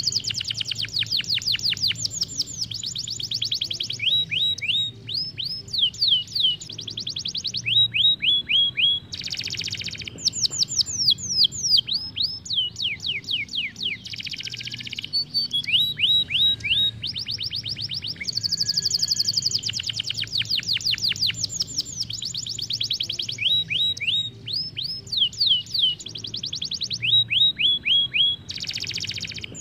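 Isabel canary singing continuously: long rolling trills of quick, descending whistled notes, with the phrase changing every few seconds.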